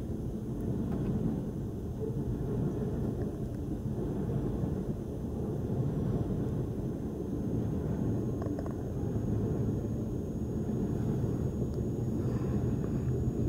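CN freight train of double-stacked intermodal container cars rolling through a level crossing, heard from inside a car's closed cabin as a steady, muffled low rumble.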